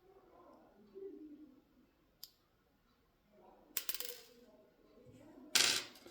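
Small metal parts and tools being handled while a lock cylinder is taken apart: a sharp click about two seconds in, a quick cluster of clicks near four seconds, and a louder short rasping scrape near the end.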